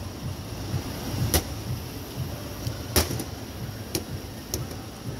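Sharp metallic clacks as a metal tool snaps onto and knocks against the SUNREE L550 work light's magnetic base on a metal bench: two loud clacks about a second and a half apart, then two lighter ones, over a steady low hum.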